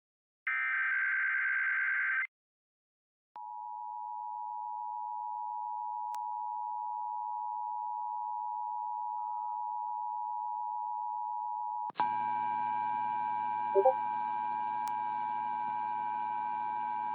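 Emergency Alert System broadcast tones: the tail of the SAME header, short buzzy digital data bursts, then after a brief gap the steady two-tone attention signal begins about three seconds in and holds. About twelve seconds in a low hum and hiss join the tone.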